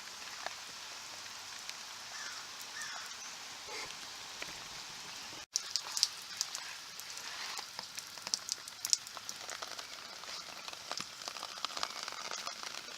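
Steady rain falling, with many small irregular ticks of drops through the second half. There is a brief break in the sound about five and a half seconds in.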